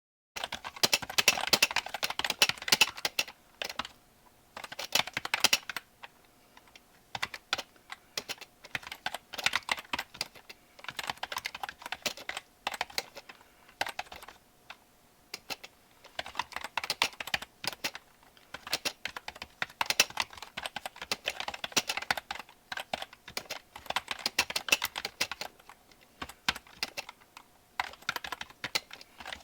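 Typing on a computer keyboard: quick runs of key clicks lasting a few seconds each, broken by short pauses.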